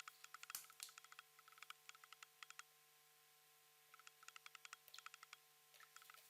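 Quiet, rapid light clinking of a kitchen utensil against a dish while mixing cake batter, about eight taps a second. It comes in bursts, with a pause of about a second near the middle, over a faint steady hum.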